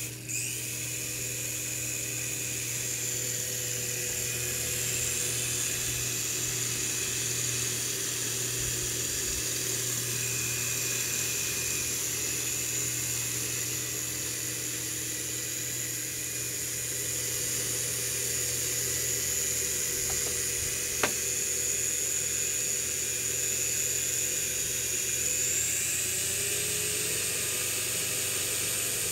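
Toy remote-control helicopter's small electric rotor motors running steadily with a high-pitched whine over a low hum. The whine rises in pitch near the end, and there is a single sharp click a little past two-thirds in.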